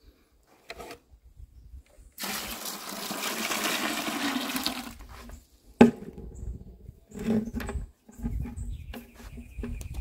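Water poured from a plastic bucket splashing and rushing for about three seconds, then a single sharp knock just before the middle, followed by a few lighter knocks and handling noises.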